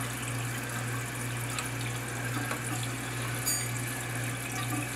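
Toilet tank refilling: water running steadily in through the fill valve, with a brief high click about three and a half seconds in.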